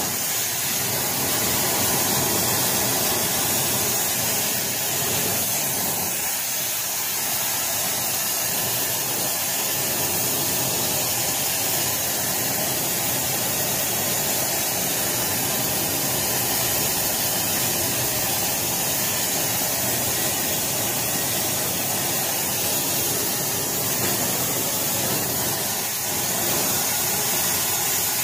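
Oxy-fuel rosebud heating torch burning with a steady hiss as its flame is held on a steel exhaust pipe, heating it red hot to widen the pipe end.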